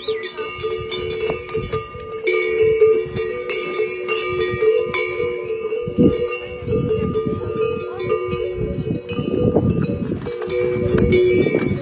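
Bells worn by yaks clanging irregularly, several bells ringing at once with overlapping held tones.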